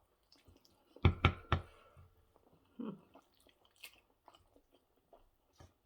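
Close-miked chewing and mouth noises of a person eating, with three sharp clicks in quick succession about a second in and scattered small clicks after.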